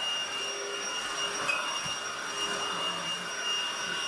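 Hoover cordless stick vacuum cleaner running steadily: a high, even motor whine over the rushing noise of the suction.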